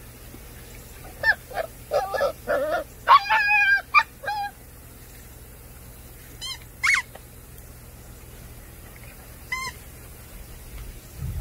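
High-pitched animal calls: a quick run of short calls, then two or three single calls spaced a few seconds apart.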